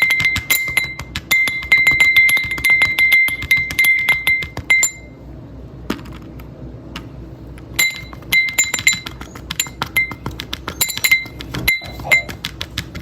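Rapid tapping and clinking on a hard object that rings with a steady high tone. It stops for about three seconds around five seconds in, then starts again.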